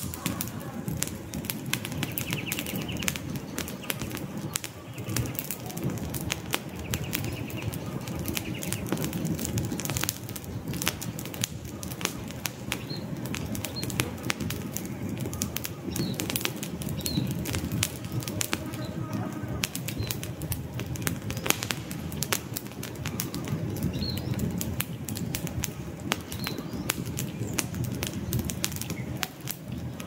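Wood campfire burning, with constant crackling and sharp pops and snaps over the low rush of the flames. A few faint bird chirps come through now and then.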